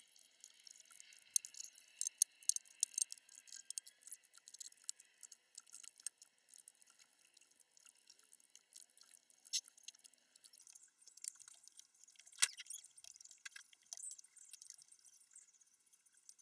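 Faint, sharp clicks and ticks of hand work: a slit plastic hose pipe is pressed over a car tire's rim and bound on with thread. The clicks are thickest in the first few seconds, with one louder click near the end.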